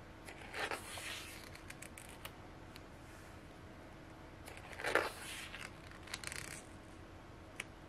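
Paper pages of a printed booklet being turned by hand: brief paper rustles and swishes about half a second in, again around five seconds in and just after six seconds, with a few light taps of handling between.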